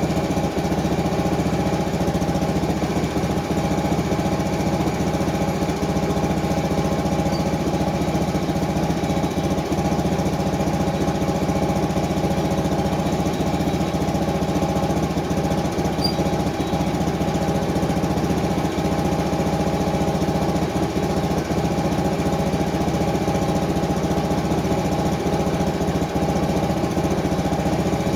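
The small gasoline engine of a Frontier OS23 portable sawmill, about seven horsepower, running steadily at constant speed.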